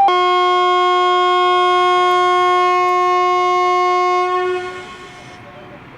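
Indian Railways WAP-7 electric locomotive's horn sounding one long, steady blast that cuts in sharply, holds for about four and a half seconds, then dies away.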